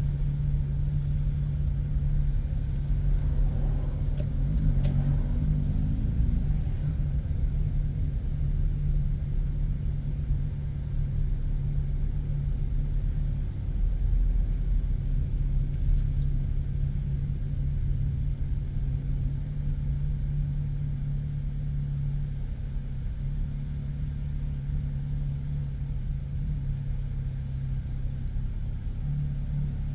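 Car driving in city traffic: a steady low engine-and-road rumble, with a brief rise in pitch about four seconds in.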